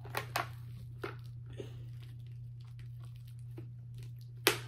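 Handling noise from a football helmet's snapped-in inside padding and shell being tugged at: a few scattered light clicks and rustles, with one sharper click near the end.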